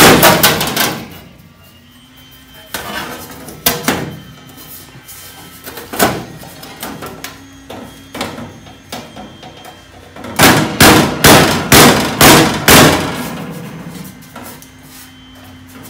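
A thin sheet-steel patch panel being handled and bent against the Jeep's body, banging and rattling. There is one loud bang at the start, a few scattered knocks, then a quick run of about six loud bangs about ten seconds in.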